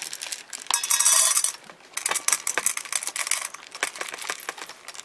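Dry cat food poured from a plastic container into a stainless steel bowl: a rattling rush about a second in, then scattered clinks of pieces against the metal.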